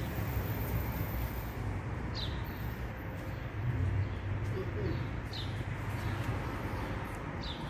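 A small bird's short, high chirps, one every couple of seconds, over a steady low outdoor rumble.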